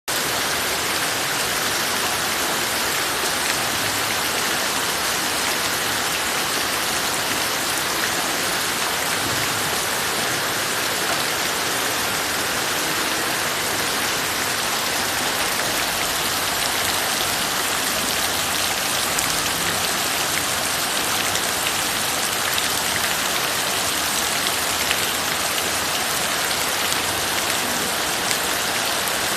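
Heavy rain falling steadily: a dense, even hiss of downpour with scattered drops ticking through it.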